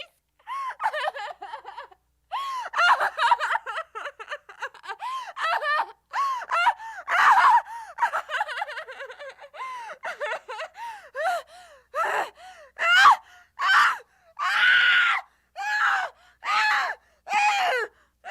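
A woman screaming in a long run of short, high-pitched shrieks and gasping cries, each rising and falling in pitch, with brief gaps between them. In the last few seconds they come as separate shrieks about once a second.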